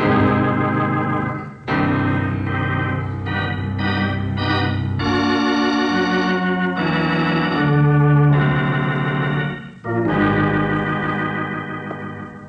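Radio-drama bridge music on organ marking a scene change: a run of held, dramatic chords that change several times. It breaks off about ten seconds in, then a final chord fades away.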